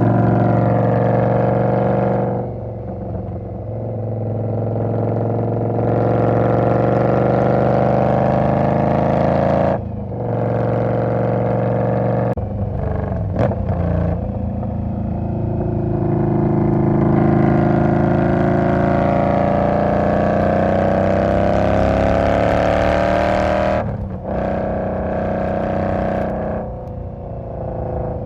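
2020 Indian Scout's V-twin engine under throttle, its note climbing in pitch over several seconds and dropping back sharply three times, with a few short clicks around the drops.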